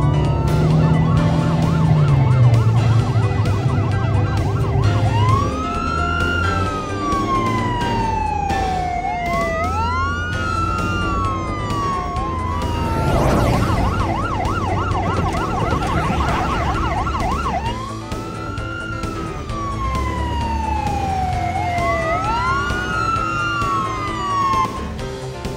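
Ambulance siren alternating between a slow rising-and-falling wail and a fast yelp: the yelp sounds for about four seconds at the start and again about halfway through, with the wail between. Background music plays under it.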